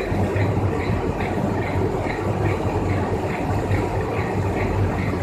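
Film web-handling machine running steadily, with a low hum and a regular rhythmic clatter about twice a second as the printed plastic film web runs over its rollers.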